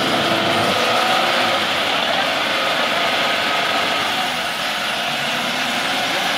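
Lada Niva's engine running while its front bumper winch hauls the mud-stuck car slowly forward on a taut cable. The sound is steady, with a pitch that drifts and bends.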